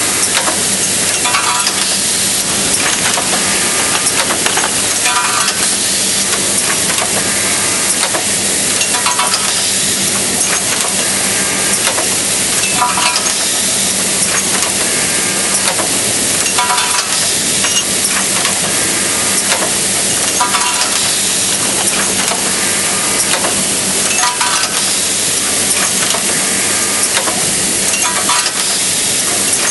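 Semi-automatic hinge assembly machine running: a steady noise with a low hum, a repeating machine cycle about every two seconds, and scattered clicks.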